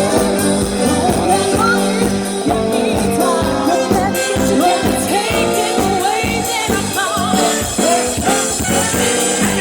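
Live cover band playing an upbeat pop-rock song with a lead singer, over a steady driving beat.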